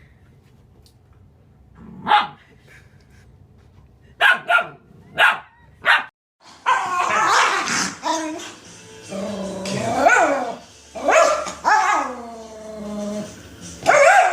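A dog barking: one bark about two seconds in, then four sharp barks in quick succession. After these comes a louder, busier stretch of dog sounds mixed with music.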